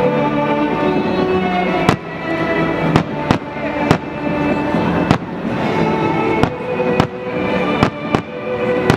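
Fireworks bursting in about a dozen sharp bangs, irregularly spaced, over music playing throughout.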